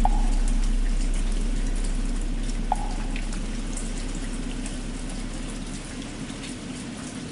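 Steady rain, with the deep ring of a struck temple bell slowly dying away. Two light ticks of drops land on top.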